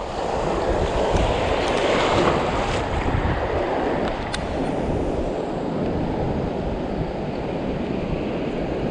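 Wind buffeting the microphone over a steady rush of water, louder in the first few seconds, with a few faint ticks.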